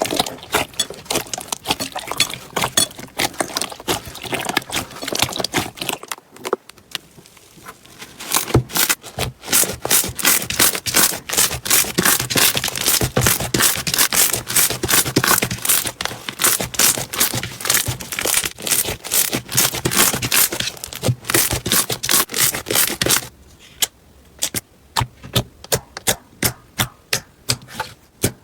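Slime being squeezed and poked by hand, giving dense, rapid crackling clicks and pops. It eases off briefly about six seconds in, and near the end the clicks become sparser and separate.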